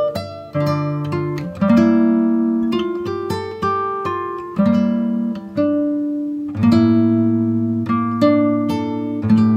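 Background music of a plucked acoustic guitar, picking notes and chords that ring and fade over a bass line.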